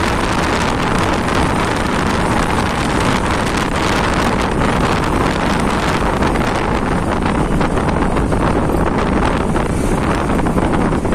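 Motorcycle ride at cruising speed: heavy wind buffeting the microphone over the bike's engine and road noise, steady and loud.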